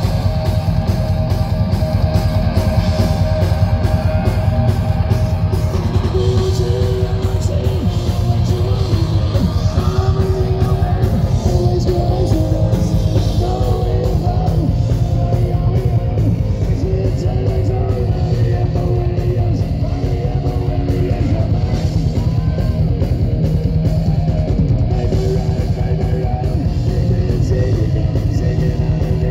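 A live rock band playing a fast, loud punk-style number: distorted electric guitars, bass and pounding drums, with a singer's voice over them.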